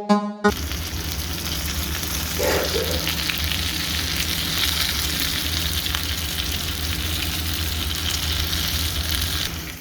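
Fish frying in hot oil: a steady, dense sizzle with fine crackle, starting about half a second in as a short electronic music jingle ends, and cutting off at the very end.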